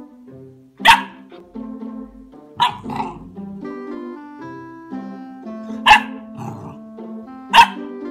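Golden retriever puppy giving four short, sharp play barks, spaced a second or more apart, over background piano music.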